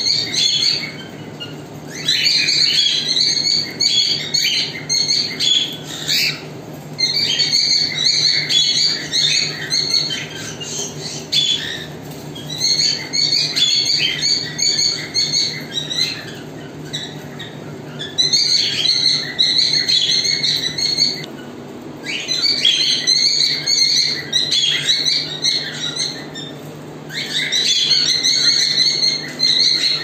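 Cockatiels chirping and chattering in dense bouts of a few seconds each, with short pauses between bouts, over a steady low hum.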